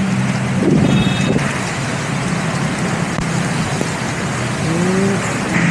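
Steady hiss of rain mixed with road traffic, with a low engine hum underneath. A short high beep sounds about a second in.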